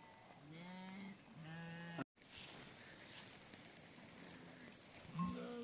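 Sheep bleating: two held bleats in the first two seconds, then fainter bleats later, with a brief break in the sound about two seconds in.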